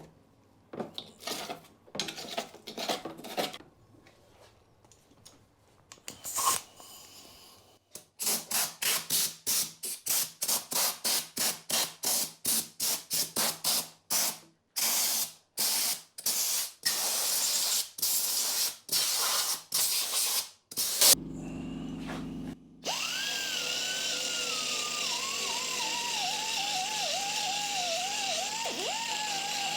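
Metalwork on a lawnmower: a run of short, even strokes, about two a second, for some thirteen seconds. Then a power tool starts and runs steadily, its pitch sagging and wavering as it works the metal.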